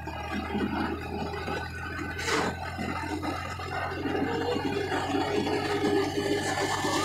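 Inside a moving vehicle on a concrete road: a steady low engine hum under a scratchy rattling of loose parts, with one short knock about two seconds in. The rattling grows busier about four seconds in.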